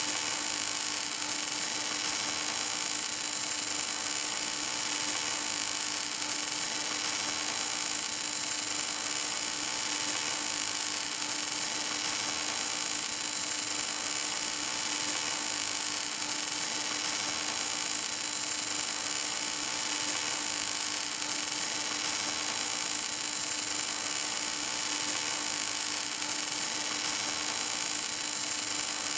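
Welding arc of an HK-11W automatic pipe welding machine burning steadily along a pipe seam: an even hiss with a constant hum underneath, unbroken throughout.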